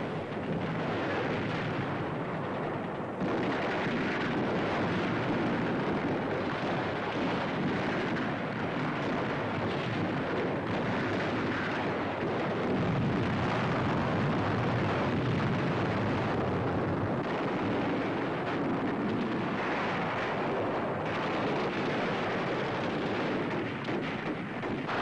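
Battle sound on an old newsreel track: a dense, continuous din of gunfire and shell explosions, getting louder about three seconds in.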